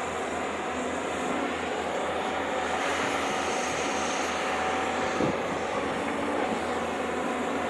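Excavator's diesel engine running steadily, a constant drone with a faint steady whine. There is a short thud about five seconds in.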